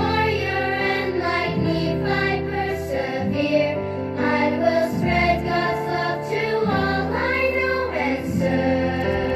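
A group of adult and child voices singing together over an instrumental backing with steady held bass notes.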